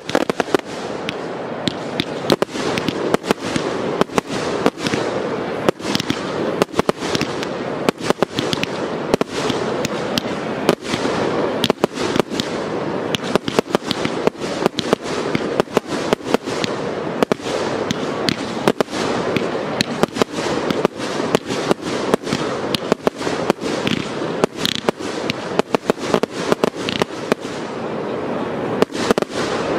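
Fireworks display: aerial shells bursting in quick succession, sharp bangs often several a second, over a continuous rushing noise with no let-up.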